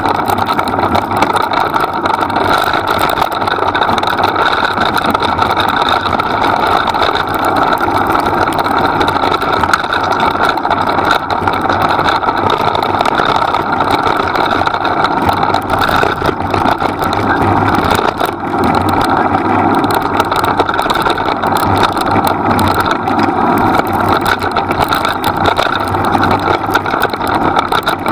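Steady wind buffeting on the microphone, together with the rolling rumble of a dog-pulled rig travelling fast over a leaf-covered dirt trail.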